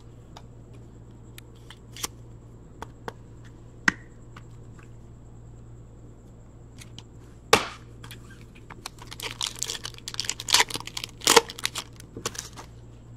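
A trading card pack's wrapper being torn open and crinkled. There are scattered small clicks and one sharp snap about halfway through, then a dense run of crinkling.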